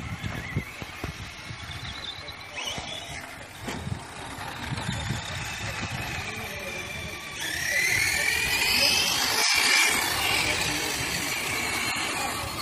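Radio-controlled cars racing on a dirt track: a high motor whine that rises and falls in pitch as they speed up and slow down. It grows louder about seven and a half seconds in.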